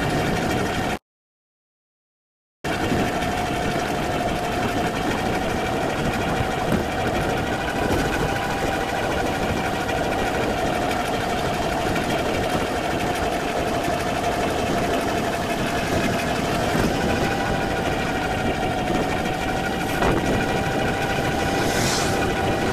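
Steady mechanical whine over wind and rolling noise while riding a bicycle along a paved path. About a second in, the sound cuts out completely for over a second, then picks up again unchanged.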